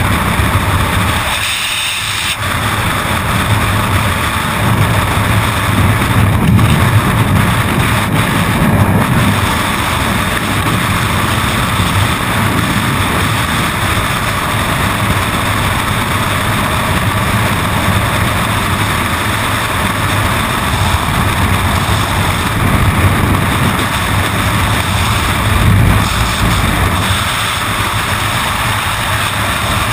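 Loud, steady wind rush of skydiving freefall buffeting a helmet-mounted camera's microphone.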